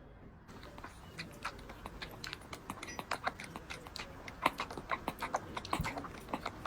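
Baby kitten drinking milk: quick, wet clicking and smacking sounds at an uneven pace of several a second, sparse at first and growing busier and louder after the first second.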